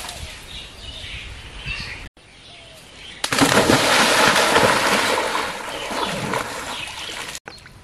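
A person splashing and wading through muddy pond water, a loud, continuous churning splash that starts suddenly about three seconds in and lasts about four seconds.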